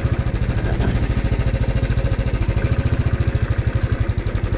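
Royal Enfield Thunderbird 350's air-cooled single-cylinder engine running at a steady, even beat under light throttle as the motorcycle rolls along a dirt trail.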